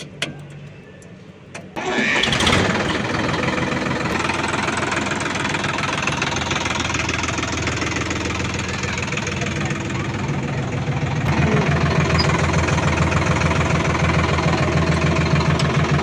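Sonalika 47 tractor's diesel engine started with the key, catching abruptly about two seconds in, then running steadily. About eleven seconds in, the engine settles into a louder, more even low beat.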